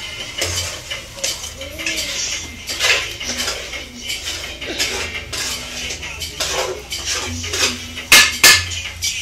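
Irregular clinks and knocks, with two louder knocks near the end.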